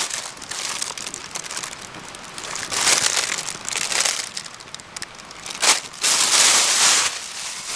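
Irregular bursts of rustling and crinkling, like something being handled or crumpled, loudest about three seconds in and again between six and seven seconds.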